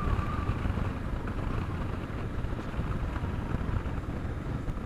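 A motorcycle riding at a steady pace: the small 125 cc engine running evenly under a steady rush of wind on the microphone.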